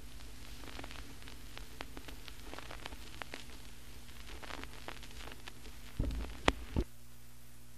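Record surface noise after the music has ended: scattered crackles and clicks over a steady low hum and hiss. About six seconds in come a few thumps, after which the crackling stops and only the hum remains.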